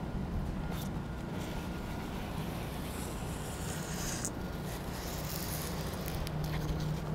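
Blue painter's tape being pulled off the roll and pressed along a car door: a high ripping hiss for about a second that stops abruptly just after four seconds in. Under it is a steady low background rumble.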